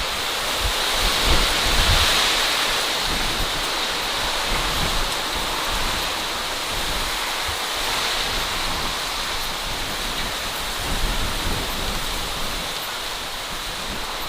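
Strong monsoon wind rushing steadily through the cardamom plants and trees, with gusts buffeting the microphone now and then.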